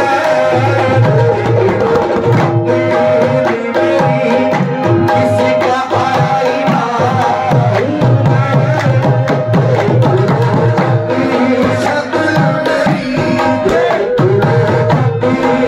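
Qawwali music: hand drums play a dense, driving rhythm under steady held melodic notes, with little or no singing.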